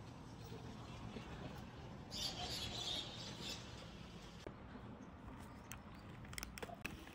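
A plastic snack wrapper handled in the hands: a soft rustle about two seconds in, then a run of short, sharp crackles in the second half as the pack is gripped.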